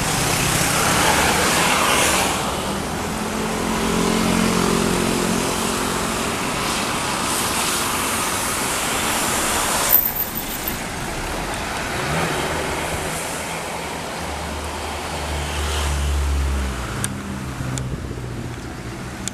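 Road traffic passing close by: vehicles driving past one after another with tyre hiss, and a heavy vehicle's engine drone swelling low near the end.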